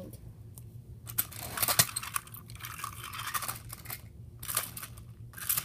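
Scattered clicks and rustles of plastic toy trains and track being handled, with a sharper click just under two seconds in, over a faint steady low hum.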